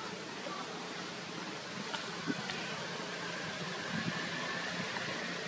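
Steady outdoor background hiss, with a few faint clicks about two seconds in and a faint, steady high tone from then on. No monkey call is heard.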